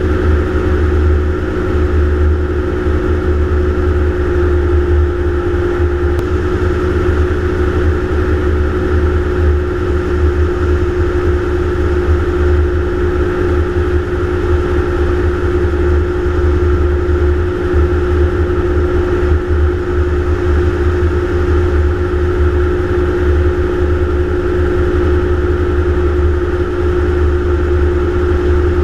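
Gyroplane in flight: its engine and propeller drone steadily at cruising power over a heavy low buffeting rumble.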